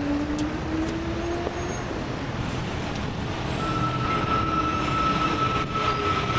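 Underground train running: a steady rumble with a slowly rising motor whine over the first couple of seconds, then a high steady squeal from about three and a half seconds in.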